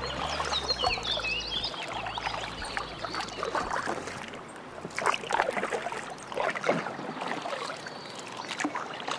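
Kayak paddle strokes dipping into river water, each stroke a short splash with dripping, coming about once a second.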